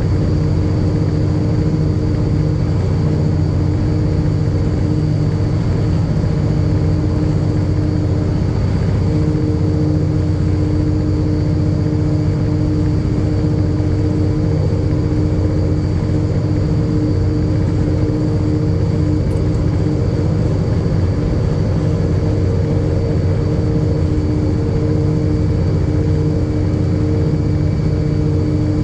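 Diesel locomotive engine running steadily, a loud low drone holding one pitch throughout.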